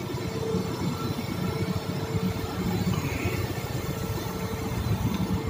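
Ship's steering gear hydraulic pump motor running steadily: a continuous machinery hum with one steady mid-pitched tone over a low drone.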